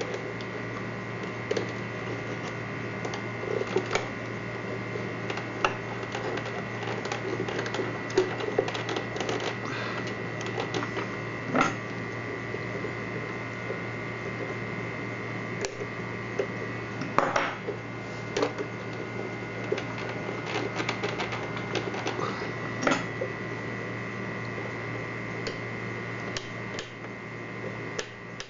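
Irregular small clicks and taps of parts being handled and fitted during the repair of a portable steam iron, over a steady hum.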